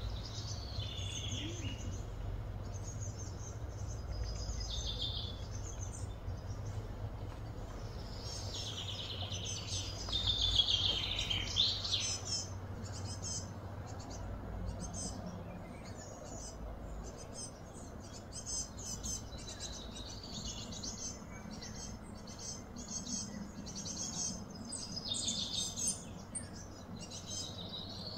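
Wild birds chirping and calling in short, repeated high phrases, busiest about ten seconds in, over a steady low background rumble that fades about halfway through.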